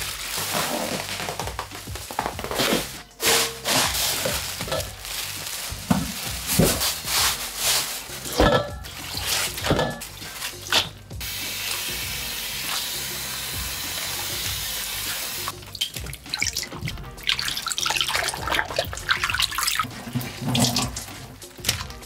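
Kitchen tap running into a sink, with splashing and clattering of things being rinsed, and a steady run of water for a few seconds midway; background music plays along.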